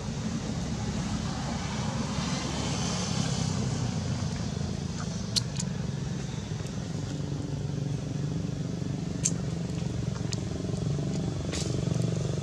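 Steady low rumble of a running engine in the background, with a short hiss about two seconds in and a few sharp clicks, the loudest just after five seconds in.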